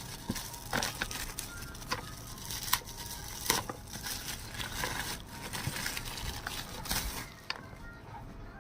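Packaging being handled: plastic crinkling and rustling, with irregular clicks and knocks.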